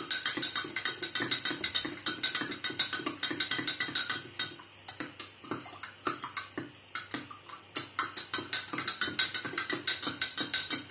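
A spoon stirring in a glass of water, clinking rapidly against the glass, several quick clinks a second.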